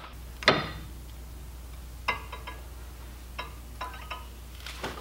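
A few light metallic clicks and clinks from a screwdriver wedged between a brake rotor and caliper being handled, with one sharper knock about half a second in.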